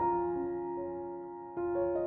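Soft background piano music: sustained notes struck at the start and again about a second and a half in, fading between.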